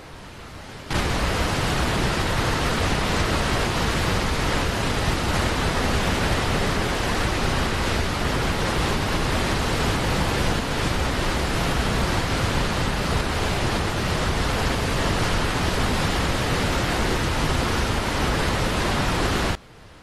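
A large waterfall's water rushing as a steady, even hiss. It starts suddenly about a second in and cuts off suddenly near the end.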